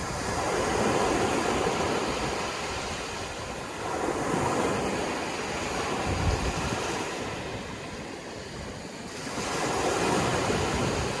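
Sea waves breaking and washing in, the surf swelling and ebbing three times, about every four to five seconds.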